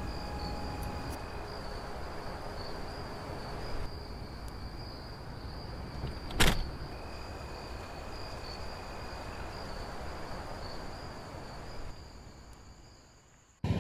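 Steady road and engine noise of a car driving, with a thin high tone running throughout. One sharp click comes about six and a half seconds in, and the noise fades out near the end.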